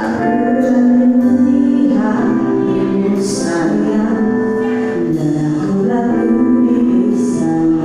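Live band music with a woman singing the lead into a microphone over electric guitar, keyboard and drums.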